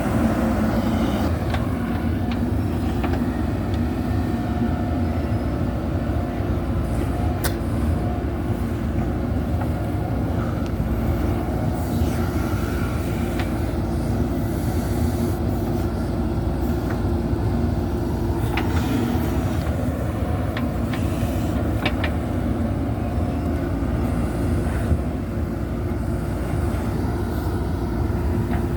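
JCB backhoe loader's diesel engine running steadily under load while working, with a few short knocks and clanks from the machine.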